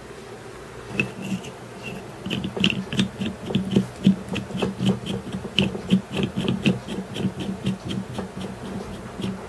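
A small motor's steady buzzing hum, with a run of quick sharp clicks, about three or four a second, starting about a second in.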